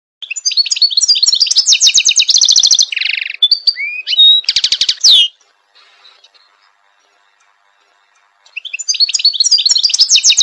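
European goldfinch singing: a fast, twittering phrase of trills and chirps with a buzzy note in it. It breaks off about five seconds in and starts again after a pause of about three seconds.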